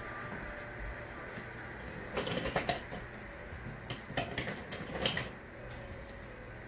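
Light clattering and knocking of small objects being handled on a table, in three short bursts a couple of seconds in, around four seconds and just after five seconds, over a steady low room hum.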